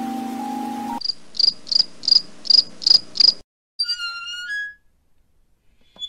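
High, regular chirping, seven chirps at about three a second, in the manner of a cricket, followed by a short run of whistled, warbling notes. Before the chirps, a steady hum with hiss cuts off suddenly about a second in.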